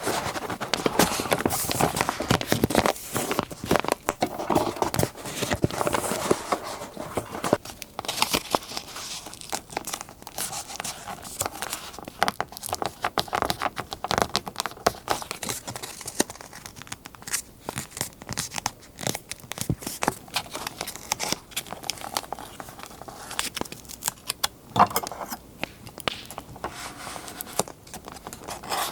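Close-up paper crinkling and tearing as scrapbook papers are handled, a dense run of small irregular crackles and rustles.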